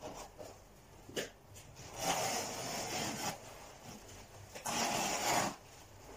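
Carpet rubbing and scraping as it is pressed and worked into the edge by hand, in two stretches of about a second each, with a single click about a second in.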